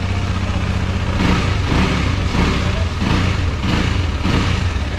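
KTM Duke 250's single-cylinder engine idling steadily, with a run of short louder surges about every half second through the middle.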